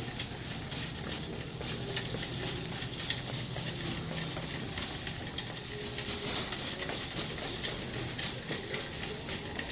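Busy grocery store ambience: a steady clatter of small clinks and rattles over faint, distant voices.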